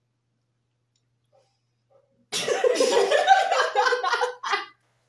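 Two men laughing loudly after about two seconds of near silence; the laughter breaks off near the end with one last short burst.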